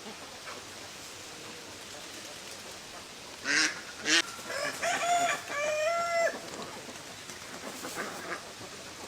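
Ducks quacking: a few loud harsh calls about halfway through, then several shorter quacks, over a steady background hiss.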